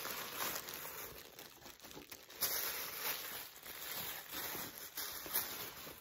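Plastic poly mailer and tissue paper crinkling and rustling as a tissue-wrapped purse is pulled out and handled, with a couple of sharper, louder crackles about two and a half seconds in and near the end.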